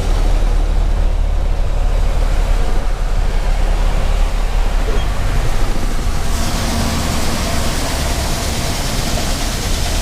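Grain truck engine running at low speed, a steady low rumble heard from inside the cab. About six seconds in, a steady hiss joins it.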